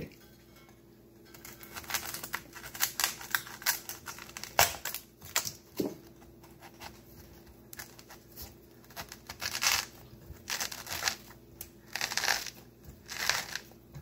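A coconut being pried and hacked open by hand: irregular bursts of crackling, crunching and tearing husk, with sharp cracks in between, the loudest about four and a half seconds in.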